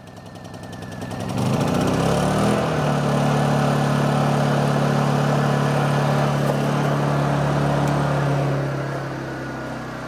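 Honda EU2000i inverter generator's small single-cylinder four-stroke engine just after a pull start, rising in speed over the first couple of seconds and then running at a steady pitch. Near the end it drops to a quieter, lower speed as it settles into eco mode.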